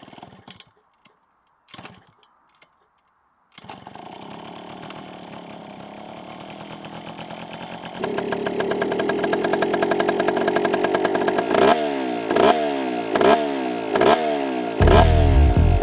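Yamaha TY80's small two-stroke single engine kick-started: a few quiet kicks, then it catches and idles with a fast, even beat. Near the end it is revved in quick throttle blips, rising and falling about once a second.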